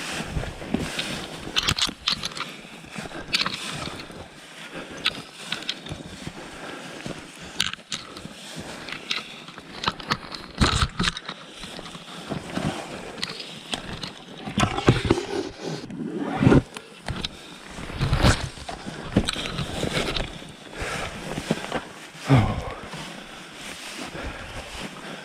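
Paddle strokes breaking through thin lake ice: irregular sharp cracks, crunches and knocks, a few every couple of seconds, with some heavier thumps in the second half.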